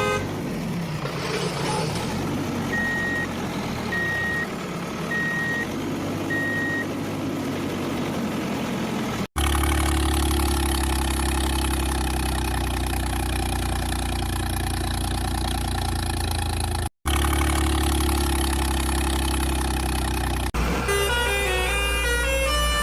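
Truck engine sounds in edited pieces. First an engine revs up and down under four evenly spaced single-tone beeps, then after abrupt cuts a steady low engine drone runs.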